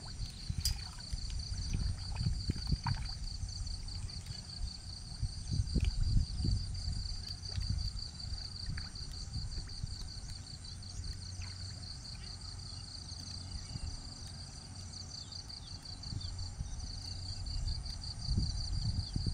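Steady, high-pitched chirring of an insect chorus, finely pulsing without a break, over a low uneven rumble on the microphone.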